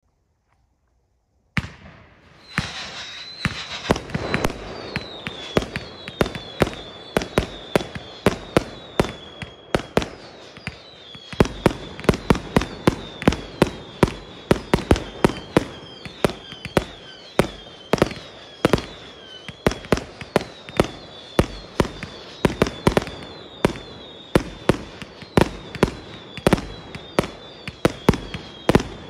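49-shot consumer firework cake firing: a rapid string of launch thumps and bangs, about two to three a second, starting suddenly about a second and a half in. Short whistles falling in pitch recur all through.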